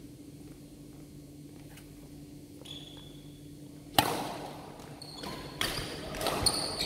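Badminton rally on an indoor wooden court: after a few seconds of quiet with a steady low hum, a sharp racket hit on the shuttlecock rings out about four seconds in, echoing in the hall. More hits and short, high sneaker squeaks on the floor follow.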